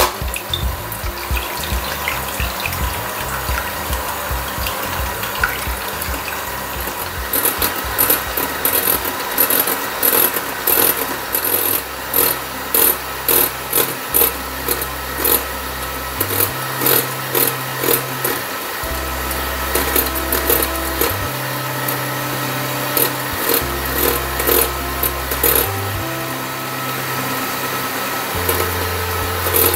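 Electric hand mixer running steadily, its beaters whipping egg whites into a foam in a glass bowl, under background music with a bass line and a ticking beat that comes in about seven seconds in.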